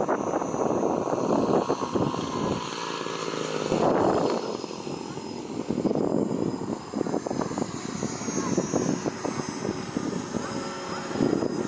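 Propeller engine of a large radio-controlled model warplane running at low throttle through its landing and roll-out, swelling briefly a few times as the throttle is blipped.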